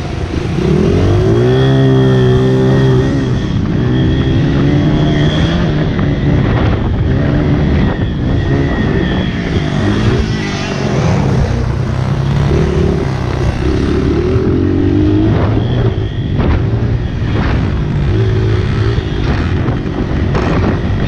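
Honda CRF80 pit bike's small four-stroke single engine revving hard, its pitch climbing and dropping again and again as the throttle is worked and gears change around the track.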